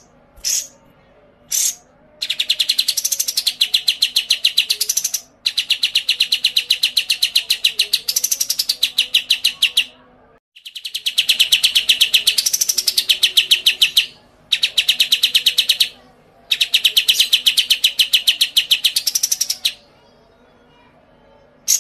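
White-rumped shama (murai batu) singing: a few short sharp calls, then five long rattling trains of rapid, evenly repeated notes, each lasting a few seconds with a brief swoop up and back down in pitch, separated by short pauses.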